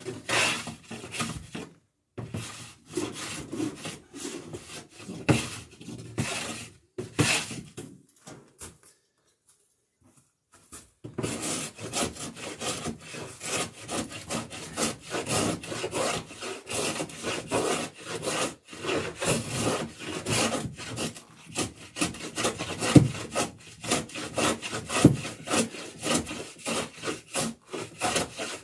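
Hand-tool strokes working the edge of a wooden garboard plank, a rapid scraping and rubbing of tool on wood as the bevel is cut toward a pencil line. They come in short bursts, stop for a couple of seconds, then resume steadily.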